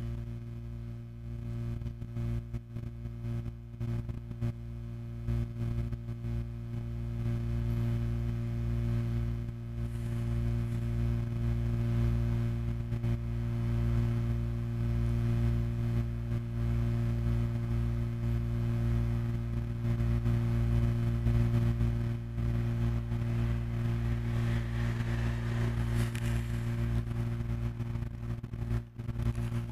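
Low, steady droning hum made of several fixed tones with a faint hiss over it, growing louder after about ten seconds, with a brief swell of hiss near the end. It is an abstract soundtrack meant to imitate tinnitus.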